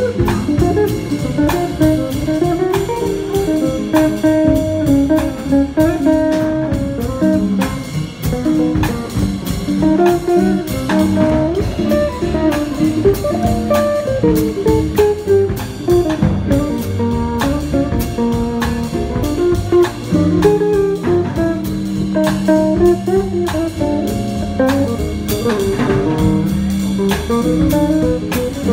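Live jazz quartet of two archtop guitars, upright bass and drums playing a swing standard: guitar melody lines over a bass line and a steady beat.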